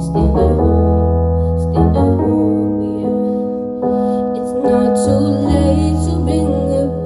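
Piano ballad accompaniment with held chords that change every second or two, and a woman singing over it.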